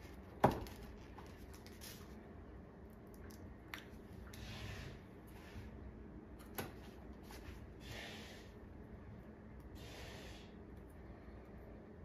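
Hands fitting small adhesive rubber feet onto a panel: a sharp tap on the panel about half a second in, then a couple of small clicks and soft rustles as the feet are peeled from their backing and pressed down.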